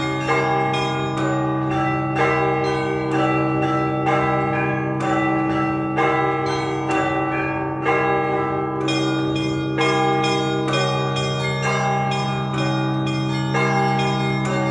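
Russian Orthodox church bells rung by hand to call people to the service. Higher bells strike in a quick repeating pattern, roughly two strokes a second, over the steady hum of the larger bells.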